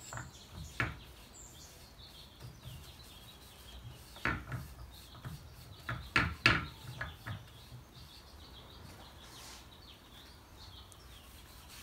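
A few light knocks and taps of objects handled on a wooden workbench, one about four seconds in and a cluster of three or four around six and a half seconds, over quiet workshop room tone.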